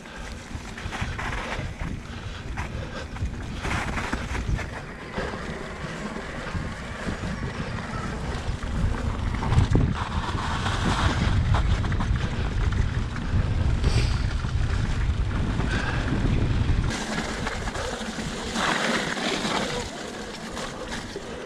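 Wind buffeting the microphone while riding an e-mountain bike, with tyre and trail noise underneath; the heavy low rumble drops away suddenly about three-quarters of the way through.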